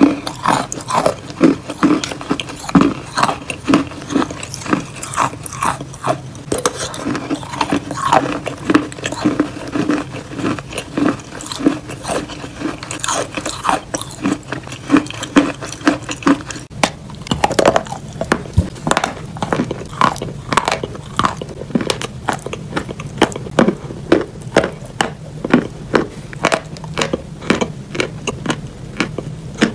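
Close-miked biting and chewing of edible chalk, much of it creamy wet chalk paste eaten off a spoon: a steady run of short sharp mouth clicks, a couple a second.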